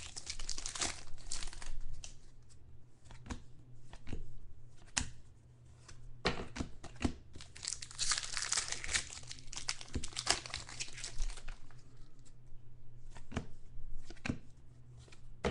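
Foil card-pack wrappers being torn open and crinkled by hand, in irregular bursts of rustling that are busiest at the start and again about halfway through.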